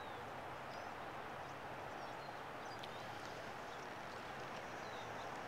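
Quiet open-air ambience: a steady low background hiss with a few faint, short bird chirps scattered through it.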